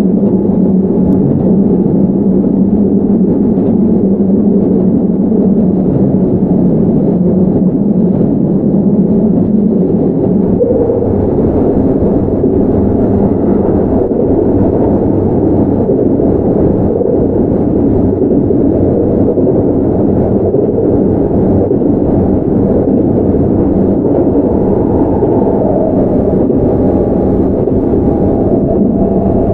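Keihan 9000 series electric commuter train running along the line, heard from inside the car: a steady rumble of wheels on rail with motor hum. A faint higher tone comes in near the end.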